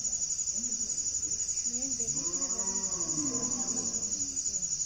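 Crickets chirping in a steady, fast, even pulse. About two seconds in, a low, drawn-out voice-like call rises and falls in the background for about two seconds.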